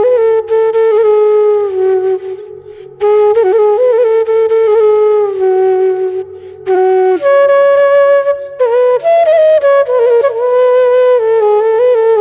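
Bangla ringtone music: a solo flute melody in ornamented phrases with pitch bends, breaking briefly about two to three seconds in and again around six seconds, over a faint low backing.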